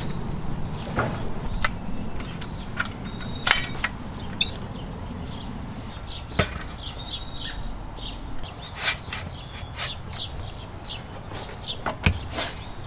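Scattered clicks and knocks from a folding bicycle repair stand being set up, its legs spread and telescoping post raised and clamped. Birds chirp in short high calls between the knocks.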